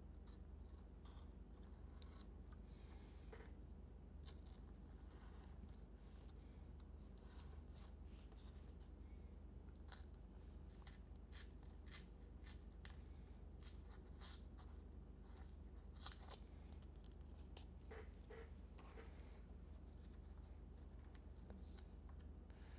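Faint, scattered scratchy clicks and scrapes of a hobby knife blade cutting through a small piece of paper-faced foam board, over a low steady hum.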